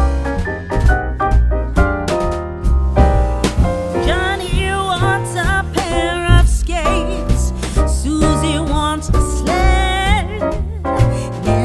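Background music: piano or keyboard over a steady beat, with a wavering lead melody coming in about four seconds in.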